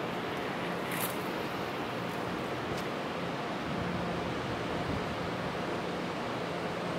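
Steady city street ambience: an even rushing noise with a faint low hum, and one sharp click about a second in.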